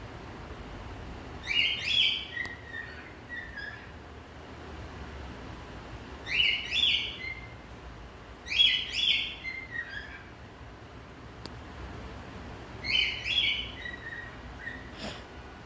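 Male cockatiel singing in four short whistled phrases a few seconds apart, each opening with loud, high chirps and trailing off in softer, falling notes.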